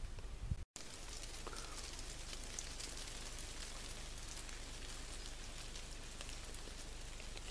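Steady patter of light rain on foliage and leaf litter, a dense hiss of many fine taps, with one faint brief whistle about a second and a half in.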